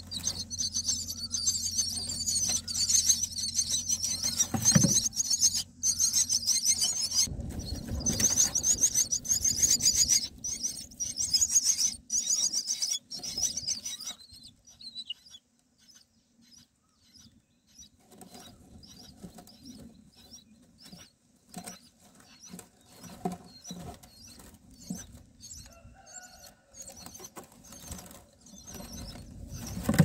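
Common myna nestlings giving a rapid, high-pitched squeaky begging chorus, which stops about halfway through. After that there is quieter scratchy rustling and light clicks of birds moving in the grass nest while the adult feeds them.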